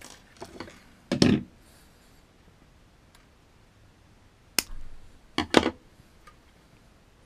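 Hand-handling noises from tying a fishing snap onto monofilament line, then scissors trimming the knot's tag end. There is a loud handling knock about a second in, a sharp snip about four and a half seconds in, and two more knocks just after it.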